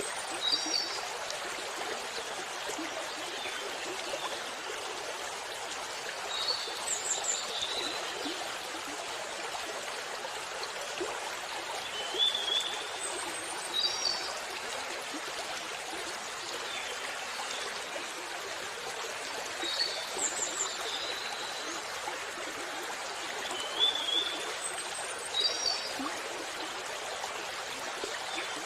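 Waterfall water rushing in a steady, even wash. Short, high bird chirps come through it several times, roughly every six seconds.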